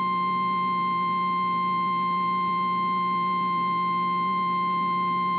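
NOAA Weather Radio warning alarm tone, a single steady 1050 Hz beep held unbroken over a low hum. This is the signal that a warning message follows, here a flash flood warning.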